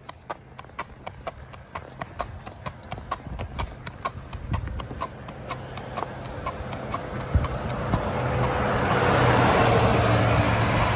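A horse's hooves clip-clopping on asphalt in an even, quick rhythm of about three to four steps a second. From about two-thirds of the way in, a pickup truck towing a trailer comes along the road, its tyre and engine noise growing louder and covering the hoofbeats.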